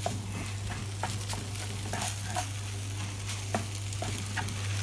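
Rice sizzling as it is stir-fried in a frying pan, with a wooden spatula scraping and clicking against the pan now and then. A steady low hum runs underneath.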